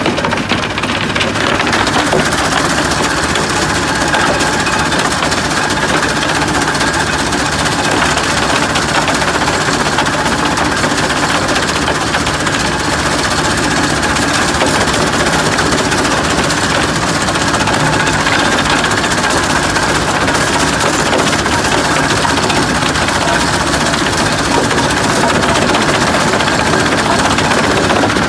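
Mobile soil screening plant running steadily under load: a diesel engine, a rubber conveyor belt and a screen deck, with soil and stones tumbling onto the grid as an excavator bucket tips a load in.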